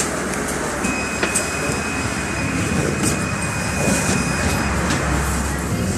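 Cabin noise inside a NefAZ 5299 city bus: a steady low engine rumble with scattered clicks and rattles. A thin, steady high tone sounds for about four seconds, starting about a second in.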